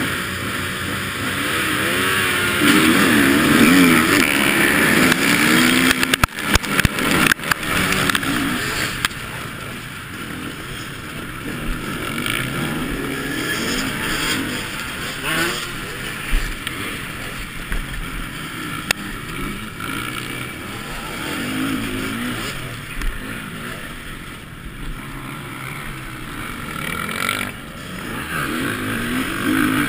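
Motocross bikes running hard together off the start. The camera bike's own engine revs up and down through the gears over rough ground. A burst of knocks and rattles comes about six to seven seconds in.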